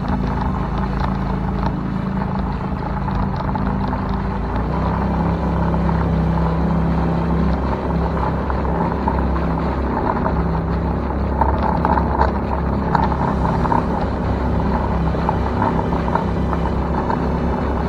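Small Honda 2 hp four-stroke outboard motor running steadily, pushing a small boat along under way. Its note shifts slightly about four and a half seconds in, then holds steady.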